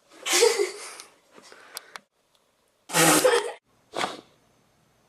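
A person sneezing loudly: two big sneezes about three seconds apart, then a shorter third burst.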